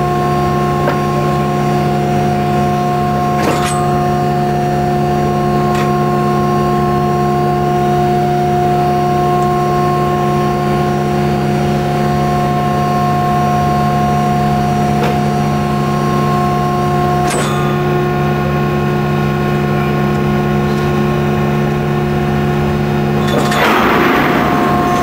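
Steady hum of a railcar mover's hydraulic power unit running, with a few sharp clicks. Near the end a louder rushing noise sets in as the mover starts its next stroke to push the rail car forward.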